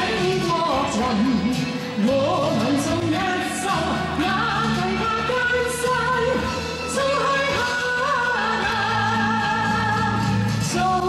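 A woman singing solo into a microphone over amplified instrumental accompaniment, her voice gliding through the melody and holding longer notes in the second half.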